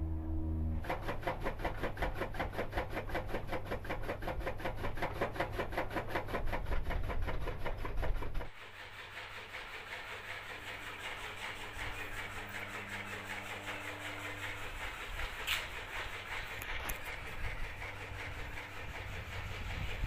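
An engine running with a fast, even beat, which drops away abruptly about eight seconds in. After that a quieter, steady engine hum and background noise remain.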